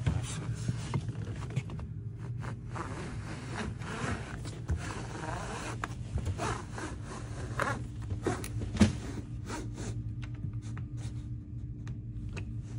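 Wolff Lino Cut 2 hand cutter being pushed along a vinyl (LVT) plank, its blade scraping and rubbing through the plank in uneven strokes, with a sharp click about nine seconds in. A steady low hum runs underneath.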